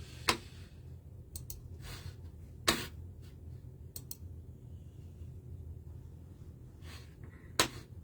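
Three loud sharp clicks, spread several seconds apart, with a few fainter quick double clicks between them, over a low steady hum.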